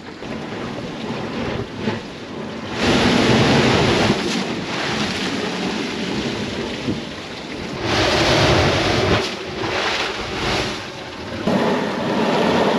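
Sea surging through a blowhole in shoreline rock, a rushing of water and spray that swells three times: about three seconds in, around eight seconds in, and again near the end.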